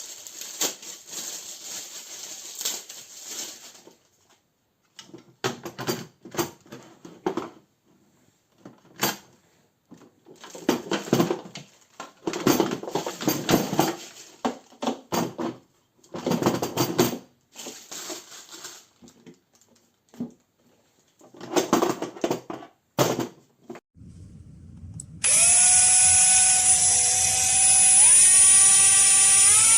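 AEG 18 V brushless compact hammer drill-driver: a run of short, irregular noisy bursts, then about 25 seconds in the motor starts a steady whine that steps up in pitch a few times.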